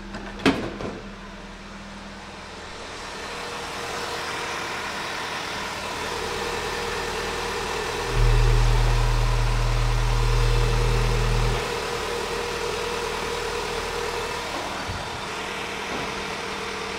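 MG ZS 1.8 Rover K-series (18K4F) four-cylinder petrol engine idling steadily, with a single sharp knock about half a second in. A louder, steady low hum lasts about three seconds in the middle.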